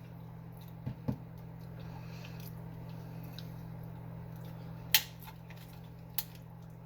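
A few sharp clicks and taps of eating utensils: two light ones about a second in, a loud crisp click near the five-second mark and another a second later, over a steady low hum.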